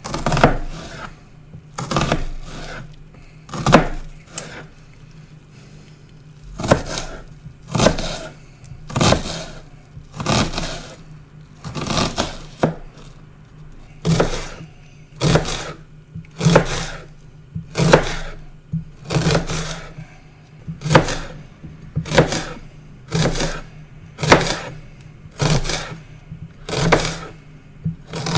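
Onion being chopped with a knife: sharp, separate cuts at roughly one a second, each a quick double hit, with a short pause a few seconds in.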